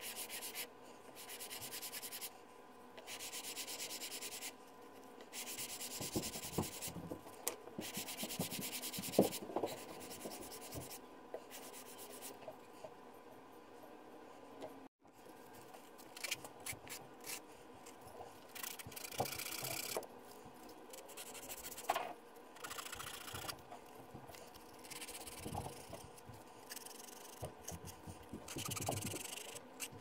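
Leather edges being sanded on sandpaper, rubbed back and forth in repeated rasping strokes of about a second each. It breaks off suddenly about halfway, then picks up again with shorter, more irregular strokes and a few knocks.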